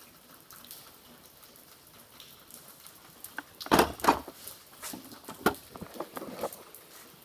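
Metal hand tools (punches, chisels, pry bars) clanking and rattling against each other in a toolbox drawer, a handful of sharp knocks starting about halfway through.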